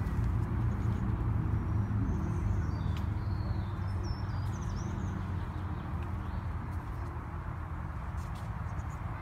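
Outdoor ambience: a steady low rumble, with a few faint high bird chirps about three to five seconds in.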